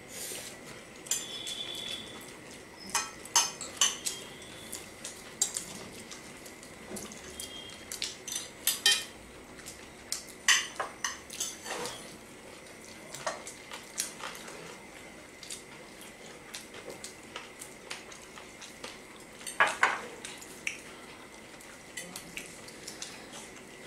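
Forks and spoons clinking and scraping against ceramic plates as people eat noodles, in irregular sharp clicks, with a few louder strikes.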